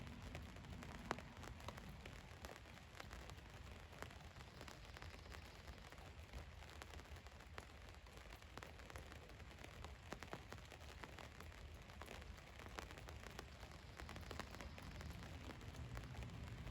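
Rain falling on a van's roof: a steady patter of scattered drop taps over a soft hiss, with a low rumble underneath.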